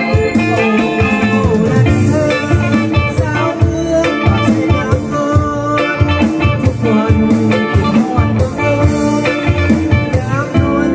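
Live Lao pop band playing: a man singing into a microphone over electric keyboard and electric guitar, with a steady beat.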